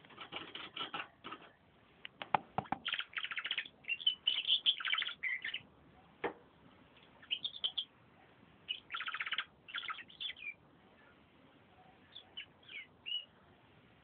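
Domestic canary singing in phrases of rapid trills, broken by short pauses, with a few sharp clicks in between.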